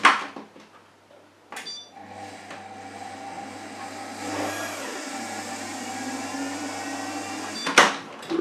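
Monsieur Cuisine Plus food processor's mixing motor running at speed 3 for about six seconds, stirring thick vanilla pudding in its steel mixing bowl. A short beep as it starts, and a sharp clack of the lid at the start and again as the motor stops.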